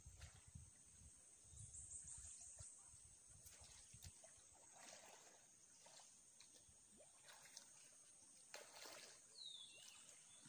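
Near silence: faint outdoor background with a few soft rustles and light clicks, and a brief faint chirp near the end.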